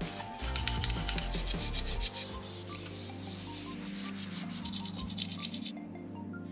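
Disassembled drill press spindle and quill parts being scrubbed by hand with a green scouring pad in a tray of cleaning liquid: rapid, continuous rubbing strokes that stop abruptly near the end.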